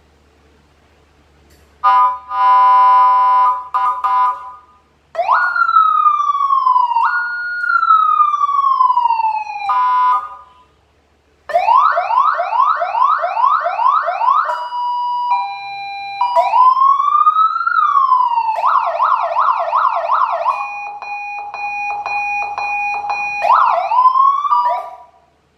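CJB200W electronic siren module cycling through its tones in short bursts with brief gaps: a steady horn blast about two seconds in, then slow rising-and-falling wails, a fast yelp of about three sweeps a second, a two-tone hi-lo, more wails and yelps, and a steady tone, cutting off near the end.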